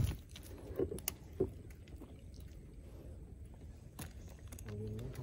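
Scattered clicks and knocks of a grouper being handled in a landing net on a wooden boat deck as a fishing lure is worked free of its mouth, with a sharp click at the start.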